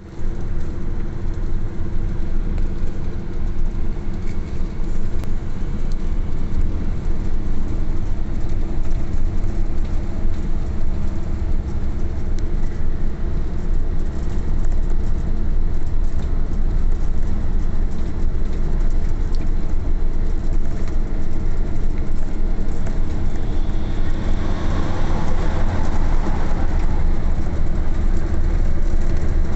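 Truck engine and tyre noise heard from inside the cab while cruising on a highway: a steady low rumble with a constant hum. About 24 seconds in, a rushing noise swells for a few seconds and fades.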